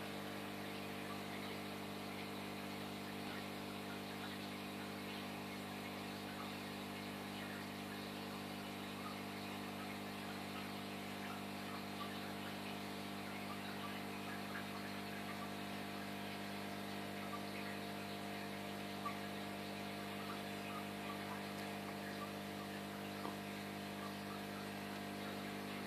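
Steady hum of aquarium aeration equipment, with fine fizzing and scattered small pops from the curtains of air bubbles rising through the tank water.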